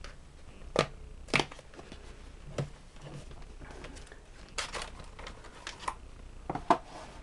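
Cardboard box of instant pack film being opened by hand: a string of sharp cardboard snaps and rustles, with the foil-wrapped film pack pulled out near the end.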